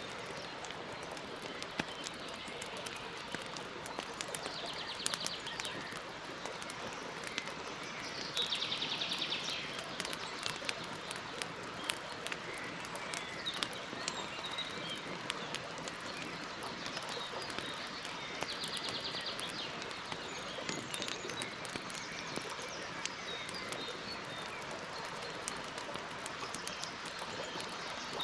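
Campfire burning with a steady hiss and frequent sharp crackles and pops. A bird gives a short, high, rapid trill three times.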